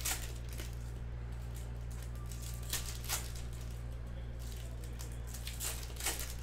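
Foil trading-card pack wrappers being torn open and crinkled by hand, in short crackly rips near the start, twice around the middle and twice near the end, over a steady low electrical hum.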